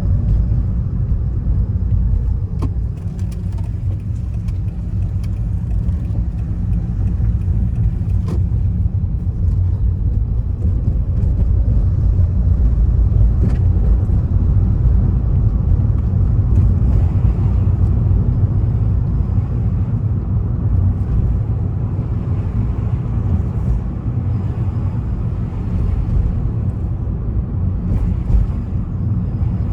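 ZVW30 Toyota Prius driving with all four windows open: a steady rumble of road and wind noise, with scattered short clicks and knocks. Among these suspension sounds the owner hears an abnormal noise from the left rear whose cause he has not found.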